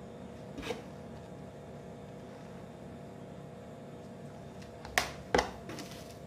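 Handling of packaging over quiet room tone: a light tap under a second in, then two sharp knocks close together about five seconds in as a paper manual is set down on a wooden bench and a hand reaches into a cardboard box.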